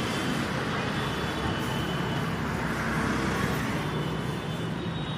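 Butter sizzling steadily on a hot charcoal-fired tandoor grill as a buttered dabeli bun toasts, over a steady low street hum.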